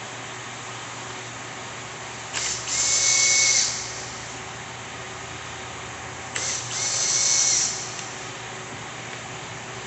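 A power drill or driver run twice in short bursts, each about a second and a half long with a steady whine, over a constant background hiss.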